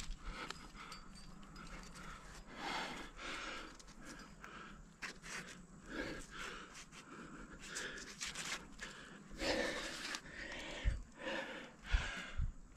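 A rock climber breathing hard while jamming a crack: repeated heavy breaths in and out, about one a second, with a few short low knocks near the end.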